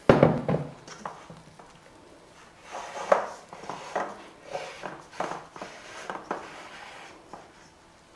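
A steel kitchen-machine mixing bowl set down with a knock, then a spatula scraping and smoothing thick cake batter in a metal springform pan in a series of short strokes.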